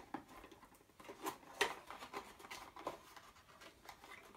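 A small cardboard box for a mains adapter being opened by hand: faint, irregular rustles, scrapes and light clicks of card and packaging.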